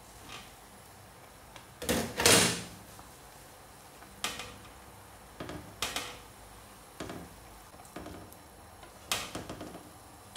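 Glass pot lid lifted off a pan and set down with a clatter about two seconds in, then a wooden spatula knocking and scraping in the pan several times as sweet potato leaves are stirred into the soup.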